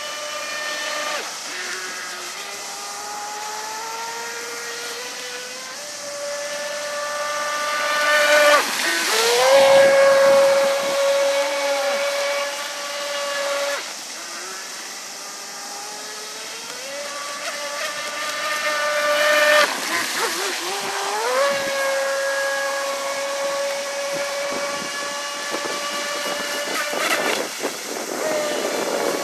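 3060kv water-cooled brushless inrunner motor of an RC speedboat, a high steady electric whine at full throttle, with the hiss of spray. Twice, about eight seconds and about twenty seconds in, the whine drops as the throttle is eased and then climbs back up as it is reopened. It is loudest about ten seconds in.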